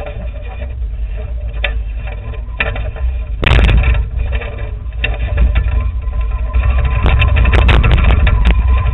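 Radio-controlled multicopter heard through its own onboard camera microphone: a steady motor whine under heavy wind buffeting, with louder gusts about three and a half seconds in and again near the end.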